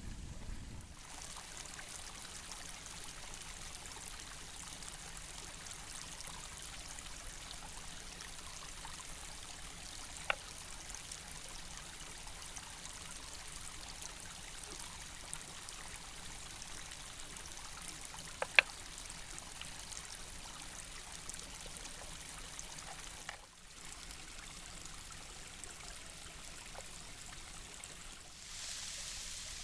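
Steady rush of a flowing stream, with a couple of sharp clicks, one about ten seconds in and a louder one a little past halfway. The sound briefly drops out and returns a few seconds before the end.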